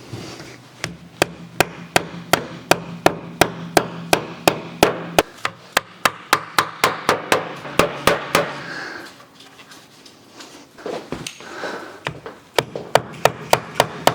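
Rubber mallet tapping wooden dowels into their holes in a teak rocking chair frame: rapid, even taps about three a second. The taps pause for a few seconds and then start again near the end.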